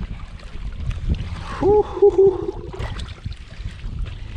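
A hooked black drum thrashing and splashing in the shallows at the water's edge, with wind rumbling on the microphone. About a second and a half in, a short voiced exclamation.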